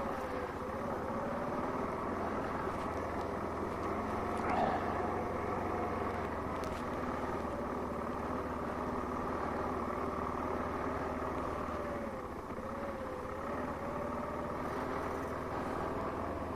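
Car engine and road noise heard inside the cabin while driving. A steady noise carries a faint tone that slowly rises and falls with engine speed. A brief click comes about four and a half seconds in.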